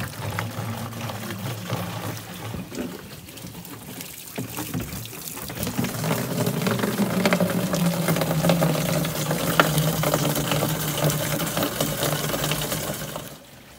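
Spring water pouring in a thin stream into a plastic jerrycan, a steady splashing fill that gets louder about halfway through and drops off suddenly just before the end.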